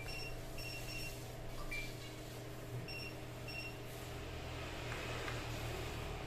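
Hioki digital multimeter giving short high beeps as its probes touch test points on a laptop motherboard, about five in the first four seconds, over a low steady hum.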